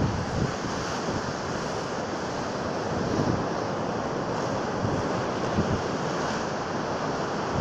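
Heavy storm surf breaking and washing ashore, a steady rush of churning water, with wind gusting on the microphone.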